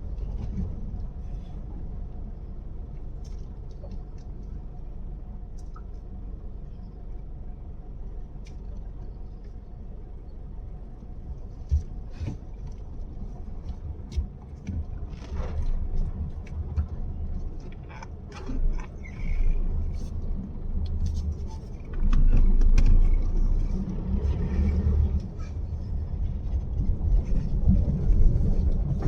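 A vehicle driving over a rough, bumpy track: a steady low rumble with scattered knocks and rattles, growing louder in the last third.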